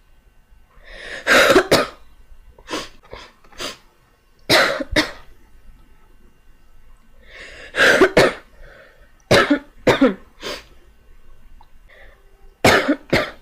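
A girl coughing: loud, harsh coughs in short clusters of one to three, coming every second or two with a few longer pauses between bouts.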